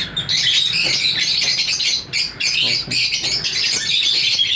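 Lovebirds chirping and chattering, many calls overlapping into a continuous high-pitched chatter.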